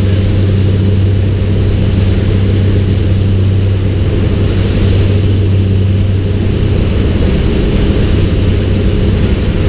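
Boat's Mercruiser engines running steadily at cruising speed, a constant low drone, with a rush of wind and water over it.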